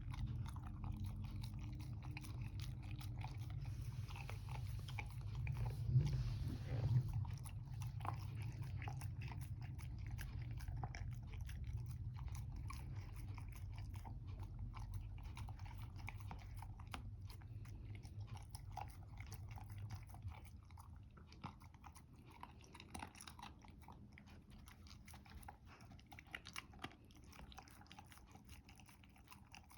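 A dog chewing and crunching food, with many small bites and teeth clicks throughout. A low steady hum runs underneath and drops away about two-thirds of the way through.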